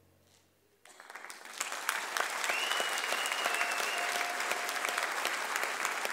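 Audience applause breaking out about a second in, dense and steady, with a long high cheer rising out of the clapping partway through.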